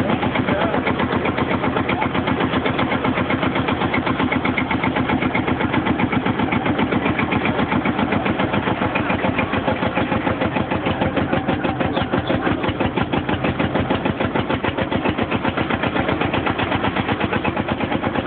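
Field Marshall tractor's single-cylinder two-stroke diesel engine running steadily with an even, rapid thump, belt-driving a threshing machine.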